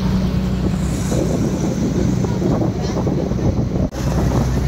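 A boat's engine running with a steady low drone, with wind buffeting the microphone and water splashing past the hull; the sound breaks off for an instant near the end.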